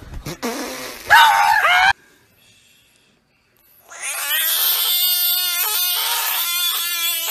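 A cat gives a short yowl about a second in, its pitch bending up and down. After a pause, a frog screams in distress as a finger pokes it: one long, loud, steady-pitched cry, broken by a couple of brief gaps.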